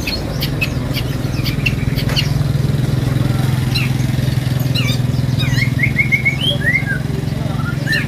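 Caged songbirds chirping and twittering, with a quick run of five or so short chirps about halfway through, over a steady low hum.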